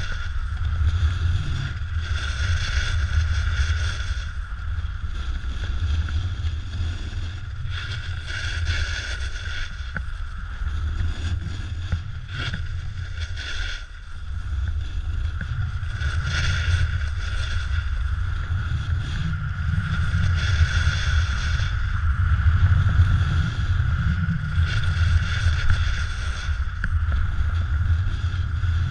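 Wind buffeting the microphone of a pole-mounted action camera during a snowboard descent, a heavy low rumble. Over it, the snowboard's edge scrapes across packed snow, swelling and fading every few seconds as the rider links turns.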